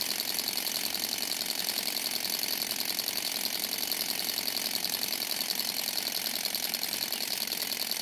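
Model Stirling engine with a helicopter-style rotor, running steadily on an alcohol burner: a fast, even mechanical whirring clatter that keeps the same pace throughout.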